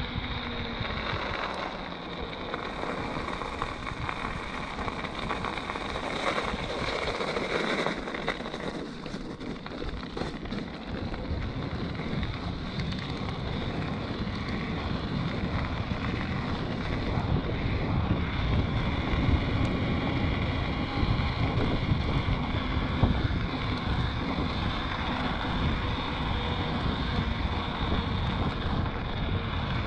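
Wind buffeting the microphone of a camera worn by someone riding an e-mountain bike, over a steady rushing from the bike's plus-size tyres rolling on wet asphalt. The low wind rumble grows heavier about halfway through.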